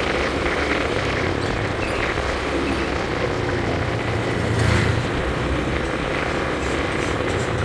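Honda scooter's small engine running steadily at cruising speed, with road and wind noise over it. The sound swells briefly a little past halfway as other motorcycles pass close by.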